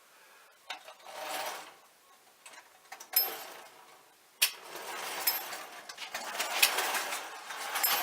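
Handling clicks and rattles from a tin-plate Marx No. 400 wind-up locomotive. About halfway through, its clockwork mechanism sets up a steady whirring with repeated clicks that grows louder toward the end.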